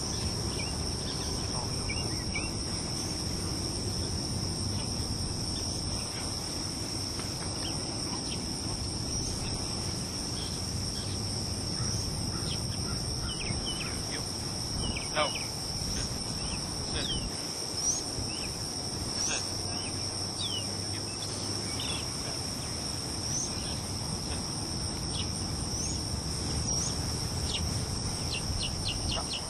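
Insects chirring in a steady, high-pitched drone on two pitches, with short scattered chirps over it.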